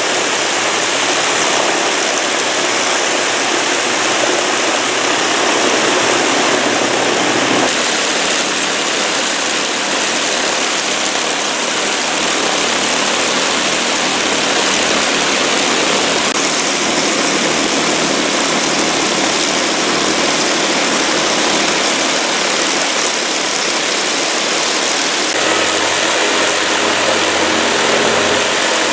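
Avro Lancaster's Merlin V12 piston engines running on the ground, a loud steady drone of engines and spinning propellers. The sound shifts abruptly about eight seconds in and again near the end.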